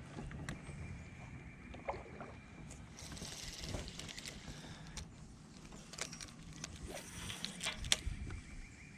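Quiet on a small fishing boat: scattered knocks and clicks of gear being handled over a low rumble of wind and water, with a faint steady high tone.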